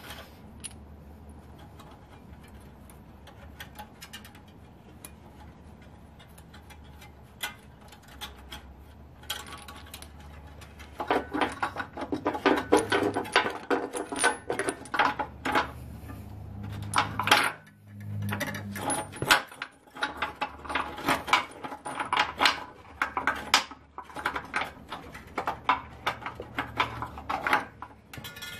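Metal clinking and rattling as a hitch carriage bolt is worked by hand up into a hole in the Jeep's rusty frame. It begins as a few scattered clicks, then becomes dense, irregular clinking from about eleven seconds in.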